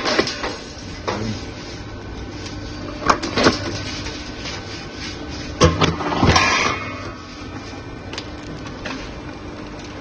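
Flexible duct connector machine running with a steady hum, its notching press knocking sharply a few times, about three seconds in, then half a second later, and again near six seconds, followed by a short hiss.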